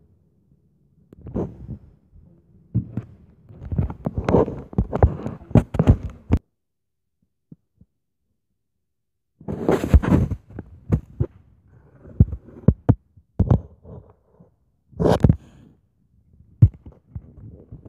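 Handling noise on a phone's microphone: irregular low thumps and short rustles as the phone is moved and gripped, falling silent for about three seconds midway before the knocking resumes.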